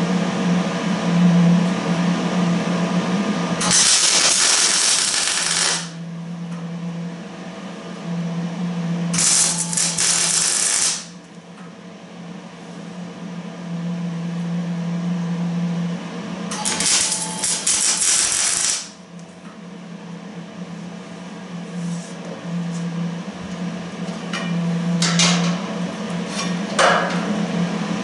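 Electric welding arc tack-welding steel brackets to a trommel's drive sprocket: four bursts of crackling arc about two seconds each, then a few shorter ones near the end, over a steady hum.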